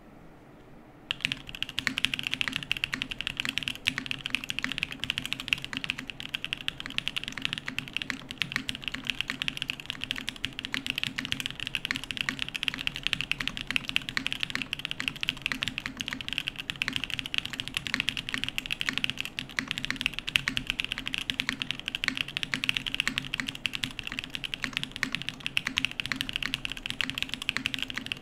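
Continuous fast typing on a Keycult 1/65 custom mechanical keyboard, with lubed Black Cherry Pie switches in a full aluminum plate and GMK Olivia keycaps, starting about a second in.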